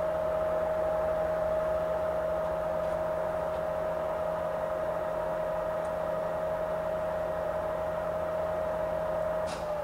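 Ganesh GT-4480 heavy-duty engine lathe running under power feed: a steady whine from its gear drive over a low hum. Near the end the whine begins to drop in pitch as the machine slows.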